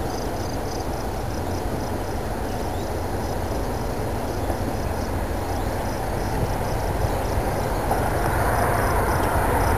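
Freight train of autorack cars rolling past on the rails: a steady low rumble that grows gradually louder toward the end.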